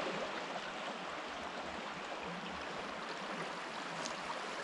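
Steady, even rushing of running water, like a stream, with no breaks or distinct events.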